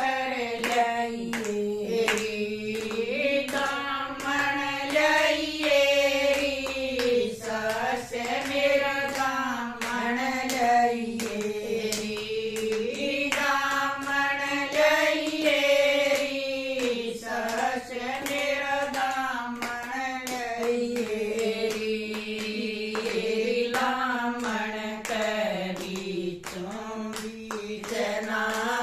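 A small group of women singing a Haryanvi devotional bhajan together, keeping time with steady hand-clapping.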